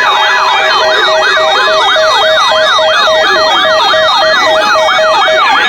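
Electronic siren in a fast yelp, its pitch sweeping up and down about four times a second, over a lower tone beeping on and off.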